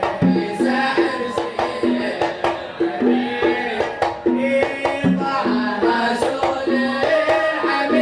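Kuwaiti sawt-style devotional music: hand drums keep a steady beat under a melody.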